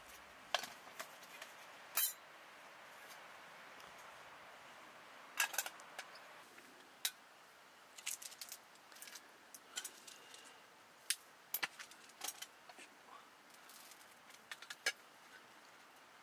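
Irregular light metallic clicks and clinks of small camp cookware being handled: an aluminium mess tin with a wire handle set down on a folding metal pocket stove.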